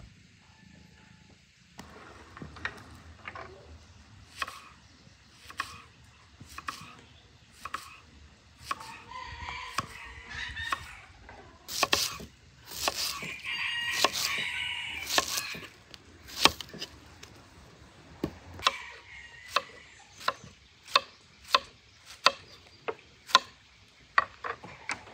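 A large knife slicing through onion onto a wooden cutting board, sharp taps about once a second that come faster near the end. A rooster crows in the background twice, near the middle.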